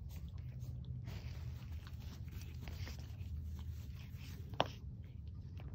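Scuffling and rustling of two teacup Shichon and Shih Tzu puppies play-wrestling on artificial turf, over a steady low rumble, with one sharp click about four and a half seconds in.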